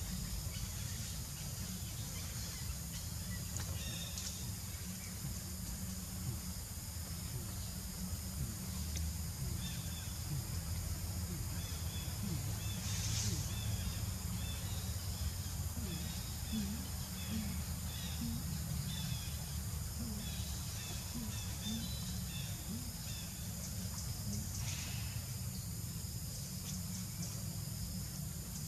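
Outdoor ambience: a steady low rumble with faint, short high chirping calls through the middle stretch.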